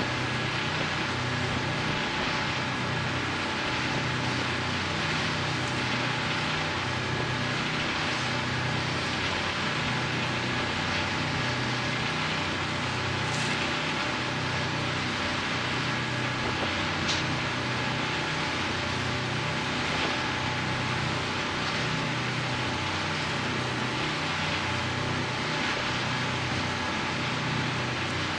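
Marine diesel engines droning steadily with a slow, regular throb, over a constant hiss of wind and rushing water, with a faint steady whine.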